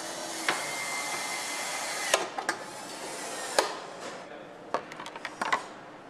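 Motorcycle assembly-line work: a steady hiss for the first four seconds or so, with a thin high whine lasting about a second and a half near the start, and scattered sharp clicks and knocks of parts and tools being handled.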